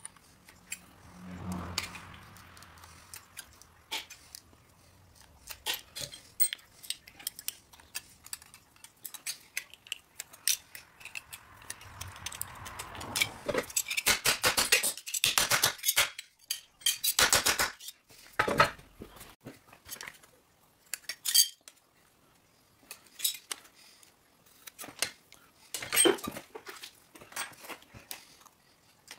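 Copper pieces clinking and clicking as copper pipe is worked by hand, in scattered strokes with a dense run of rapid clicks about halfway through.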